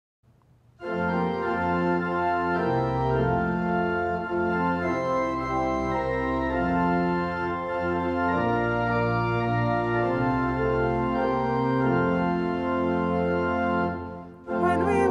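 Organ playing slow, held chords, starting about a second in and dropping away briefly near the end.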